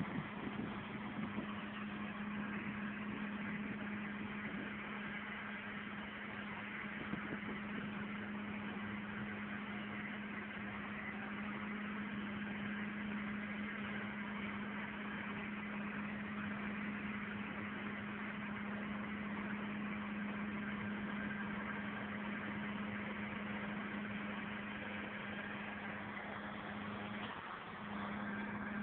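Tractor engines running steadily under load while pulling land levellers across a field: an even, unbroken drone with a steady hum that dips briefly near the end.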